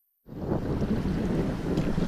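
Wind buffeting the microphone over sea water washing around, a steady rough rumble that cuts in suddenly about a quarter second in after silence.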